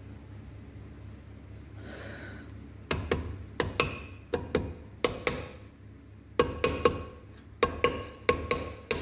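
Hammer striking a metal engine part, each blow ringing briefly. The blows start about three seconds in, come in clusters of several, pause for a moment near the middle, then pick up again faster near the end.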